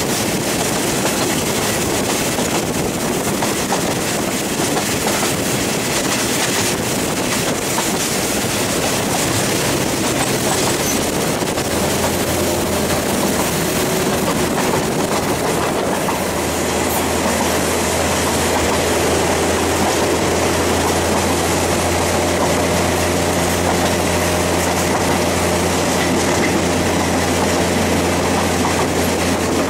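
Passenger train of the State Railway of Thailand running along the line, heard at an open carriage window: steady rolling wheel and wind noise. From about twelve seconds in, a low steady hum joins.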